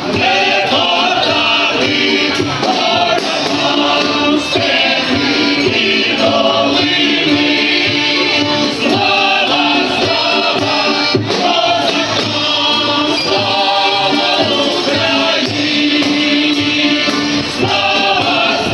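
A vocal ensemble singing a song in chorus, with musical accompaniment.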